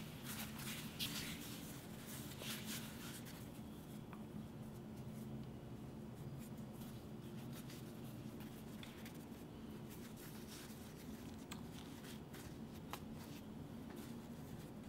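Faint soft rubbing of hands rolling and twisting yeast dough into ropes on a floured wooden board, with a few light ticks, over a low steady hum.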